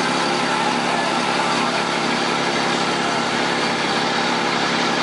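Bucket truck's engine idling steadily, a constant low hum with no change in speed.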